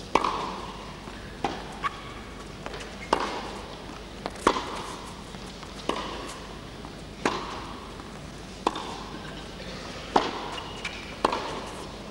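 Tennis rally on an indoor carpet court: the ball is struck back and forth by the rackets, a sharp pop about every second and a half, each with a brief echo in the arena.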